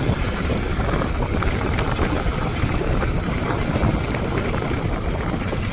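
Wind rushing and buffeting over the microphone of a moving motorcycle, with the engine and road noise running underneath, steady throughout.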